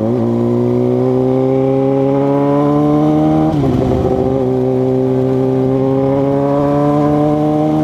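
2006 Suzuki GSX-R600's inline-four engine pulling under steady throttle, its pitch slowly rising through a gear. It drops sharply at an upshift about three and a half seconds in and again at the very end.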